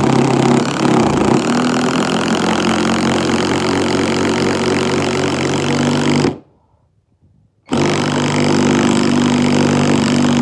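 Ferm cordless impact driver hammering a large screw into a plane-tree log: a loud, steady rattling run of about six seconds, a pause of about a second and a half, then a second run to the end.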